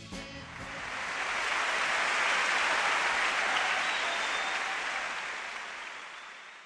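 Large concert crowd applauding and cheering as a song ends. It swells over the first two seconds, holds, then fades out near the end.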